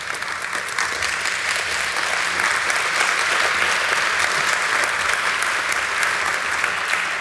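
Audience applauding: a dense, steady wash of many hands clapping.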